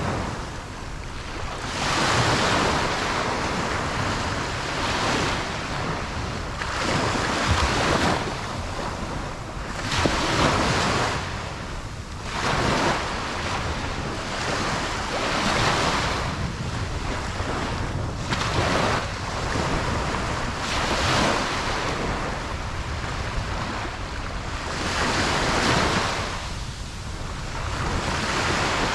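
Ocean surf breaking on a beach: waves wash in and draw back in repeated swells every few seconds, with wind on the microphone.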